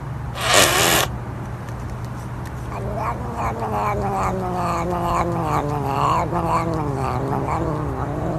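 A short hiss, then a cat's long, wavering yowl that slowly falls in pitch, over a steady low hum.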